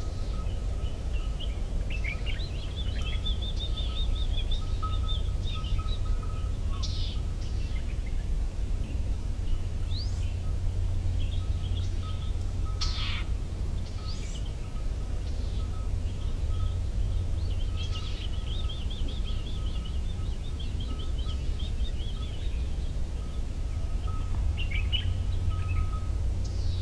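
Wild birds calling outdoors: runs of rapid trilling notes a few seconds in and again past the middle, with single quick sweeping calls in between, over a steady low rumble. A faint higher note repeats in short pulses through much of it.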